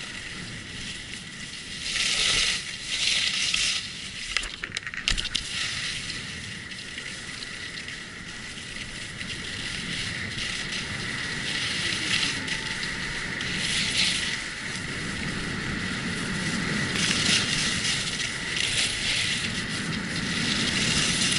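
Skis scraping and hissing over packed snow on a groomed piste, a continuous crunchy hiss that swells louder and softer from moment to moment.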